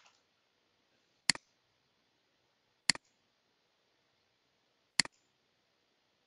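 Three computer mouse clicks, spaced about one and a half to two seconds apart, each a sharp press followed closely by a softer release.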